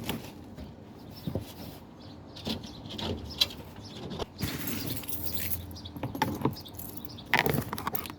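Scattered clicks, knocks and rattles of hands and tools on the metal fittings of a van's lift-gate gas strut as it is being fitted, with a brief rustle about halfway through.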